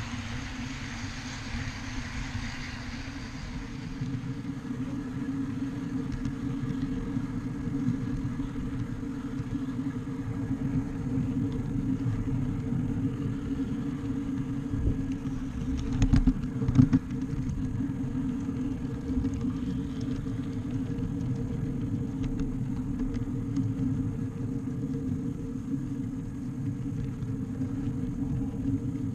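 Ride-on backyard railway train running along its track: a steady low rumble of wheels on rail under a steady hum. About sixteen seconds in, a brief burst of loud knocks stands out.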